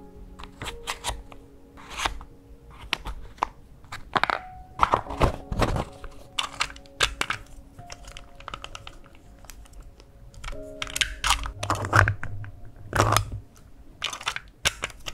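Clicking and scraping of a Midori rotating weekday stamp as the rubber day bands inside its clear plastic case are wound round to set the day, in irregular bursts. Soft background music plays underneath.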